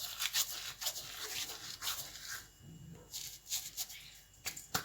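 Thyme leaves being rubbed and crumbled between the hands, giving an irregular dry crackling and rustling.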